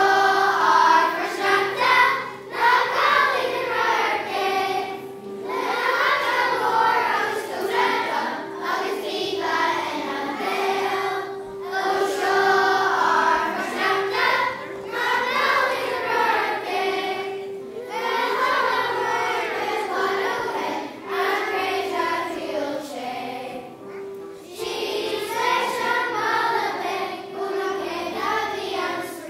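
Children's choir singing a festive song in phrases, over held low accompaniment notes that change in steps.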